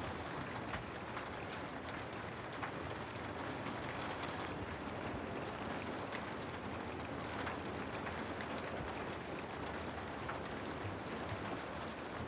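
Steady rain falling: an even hiss of rainfall with scattered faint drop ticks.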